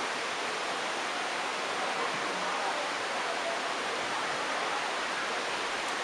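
Steady rushing of flowing water: an even hiss that holds at one level, with no breaks.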